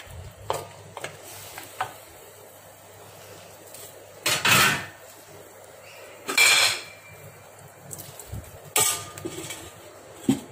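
Stainless steel lid and wok clanking as the lid is handled and set on the wok: a few sharp metal clanks, the loudest about four and a half, six and a half and nine seconds in, one leaving a brief ringing tone, with smaller clicks between.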